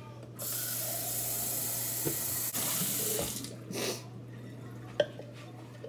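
Kitchen tap running in a steady stream for about three seconds, then shut off. A single sharp knock follows about five seconds in.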